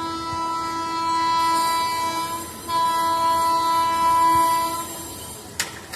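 Indian electric locomotive's horn sounding two long, steady blasts with a short break between them, followed by a single sharp click near the end.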